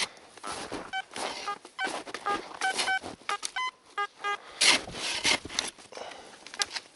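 Metal detector giving a rapid series of short electronic beeps at a few different pitches as the coil passes over buried metal, followed by a couple of scraping, crunching sounds in snow.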